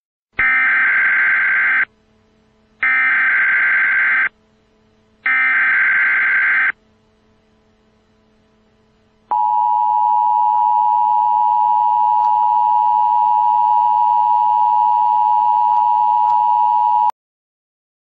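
Emergency Alert System header: three bursts of buzzing SAME data tones, each about a second and a half with short gaps between. About nine seconds in comes the EAS attention signal, a steady two-tone alarm that holds for about eight seconds and cuts off suddenly. The sequence marks the start of an emergency alert broadcast.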